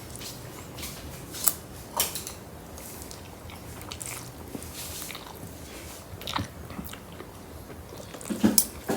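A person chewing and eating spaghetti and meatballs, with a few sharp clicks.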